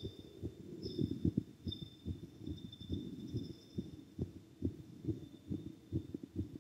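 A boy's heartbeat picked up by a cup-shaped chest microphone pressed over the heart after exercise: a quick, even run of low thumps.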